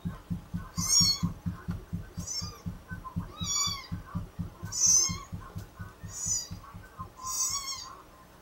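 A kitten mewing over and over, played back from a video: six high-pitched cries about every second and a quarter. A fast low pulsing runs underneath and fades out near the end.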